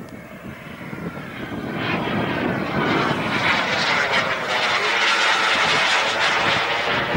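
Radio-controlled model jet flying past overhead. Its engine rush builds about two seconds in and stays loud, with a slowly sweeping pitch as it passes.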